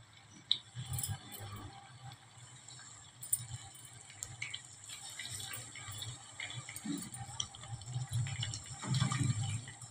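Raw chicken legs being laid into hot oil in a nonstick frying pan: faint sizzling and crackling of the oil, with small clicks and soft knocks as the pieces are handled and set in the pan.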